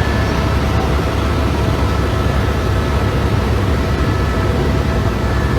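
Steady, loud low rumble of a running vehicle heard from inside, with faint steady whines above it and no change throughout.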